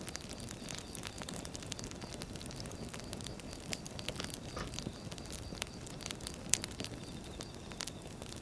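Firewood burning, crackling with irregular sharp pops over a low steady rumble; one pop about six and a half seconds in stands out louder than the rest.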